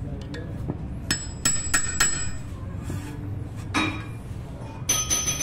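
Hammer striking a hand-held steel punch on a steering knuckle, beside the wheel bearing. The sharp metallic strikes ring high: four come in quick succession about a second in, another near four seconds, and a couple more near the end.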